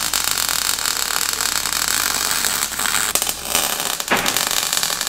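MIG welding arc crackling and hissing steadily as a bead is run along a steel joint, stopping at the end.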